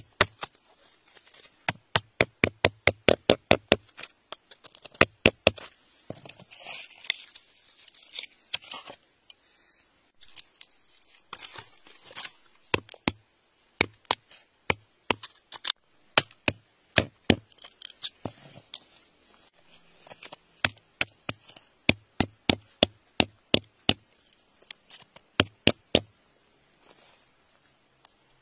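A metal rod picking and tapping at stony soil: a long series of sharp clicks, in quick runs of several a second and more spaced out between, stopping a couple of seconds before the end.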